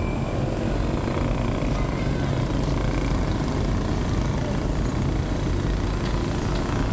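Steady outdoor background noise with a heavy low rumble, like street traffic, with no distinct events.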